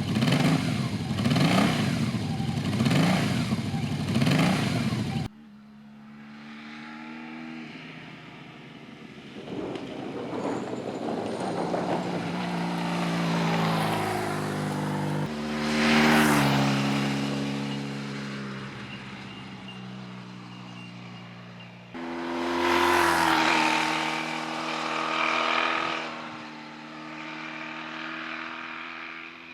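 Honda VF1000F's 1000cc V4 engine on its stock exhaust, heard in several cut-together passages: first revving up and down in quick repeats, then accelerating with its pitch rising and stepping down again and again as it shifts gears, with two loud swells as the bike comes closest.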